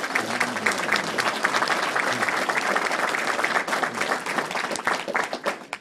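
Banquet audience applauding, with one guest's hands clapping close by over the crowd's steady clapping. The applause cuts off suddenly near the end.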